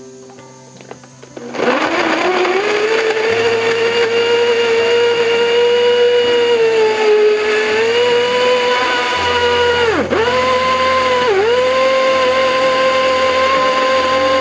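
Countertop electric blender switched on about a second and a half in, its motor winding up to a loud, steady whine as it blends cut lemons with water for lemon juice. Its pitch dips briefly twice, about ten seconds in.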